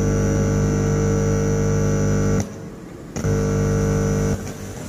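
Loud, steady mains hum and buzz from a faulty dynamic microphone through its amplifier, with no voice coming through. It cuts out twice, for most of a second about two and a half seconds in and again near the end. It is the sign of a broken wire in the microphone's cable.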